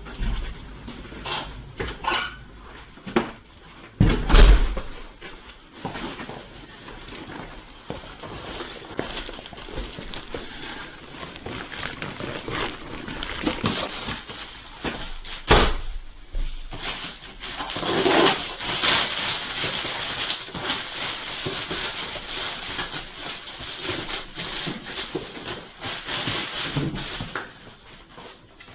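Objects being handled in a small room: several knocks and thuds, the loudest about four seconds in and another near the middle, then a long stretch of rustling in the second half.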